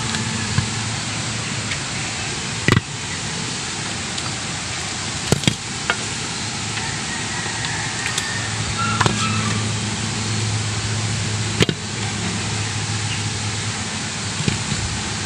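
Peeled ears of white corn being set into a metal cooking pot, landing with about half a dozen scattered sharp knocks. A steady low hum and background noise run underneath.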